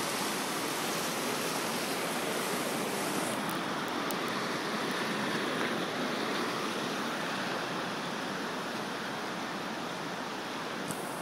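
Floodwater rushing, a steady hiss of moving water.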